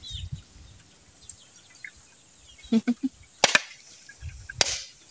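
Bolo knife chopping into a husked coconut, splitting it for copra: two sharp strikes about a second apart in the second half.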